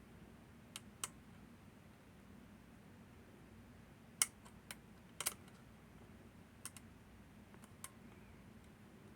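Small, sharp metallic clicks and taps, scattered irregularly about nine times, from lever-lock picking tools working the levers of a Northern Telecom NE-22 six-lever lock, over a faint steady low hum.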